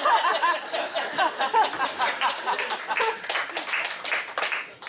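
Studio audience laughing, with many people clapping in applause from about a second and a half in.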